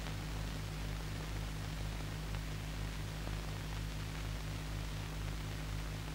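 Faint steady hiss and low hum of an old film soundtrack, with one low hum line pulsing a few times a second; no distinct machine sound stands out.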